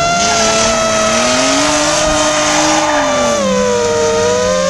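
FPV quadcopter's motors and propellers whining in strong steady tones that slide with the throttle, dipping about three and a half seconds in. A drift car's engine revs underneath, with a hiss of tyre noise.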